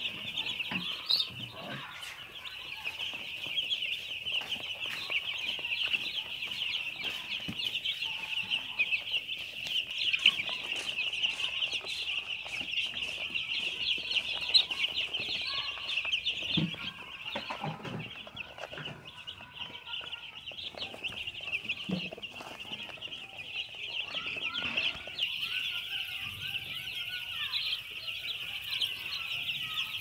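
A crowd of day-old broiler chicks peeping nonstop, many high chirps overlapping into a steady chorus.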